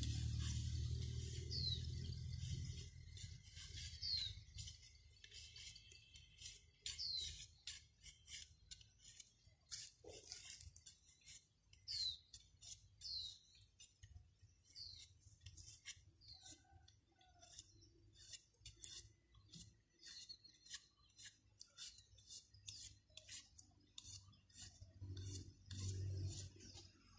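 Bamboo strips being shaved and trimmed with a blade: many quick scraping clicks and rubs, with a few short high chirps among them.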